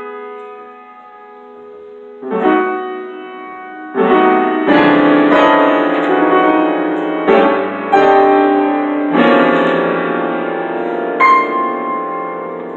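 Piano played in slow chords. A held chord fades over the first two seconds, then new chords are struck one after another and left to ring, with a last one struck near the end.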